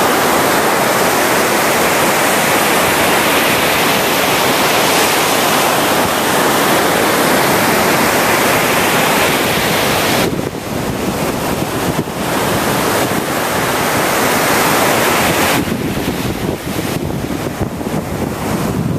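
Ocean surf breaking and washing up the beach in a steady rush. The rush eases about halfway through, swells again, and near the end turns uneven with wind buffeting the microphone.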